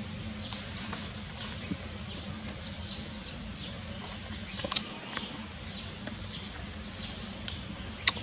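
Outdoor ambience: a steady low hum under many faint, short, high chirps, with a brief sharp high squeak about two-thirds of the way through and two more sharp squeaks or clicks right at the end.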